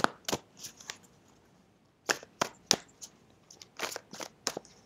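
Tarot deck being shuffled by hand: a series of sharp card snaps and taps in irregular groups, with a short pause after the first second and a quick cluster near the end.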